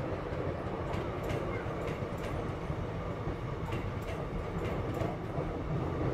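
Indian Railways passenger train of blue sleeper coaches running past, a steady rumble of wheels on rail with irregularly spaced clicks as the wheels cross rail joints.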